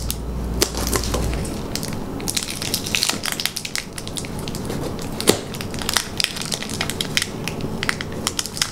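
Clear plastic cup and packing tape crackling as the tape holding the cup is cut away with a knife: a dense run of irregular crackles and small clicks.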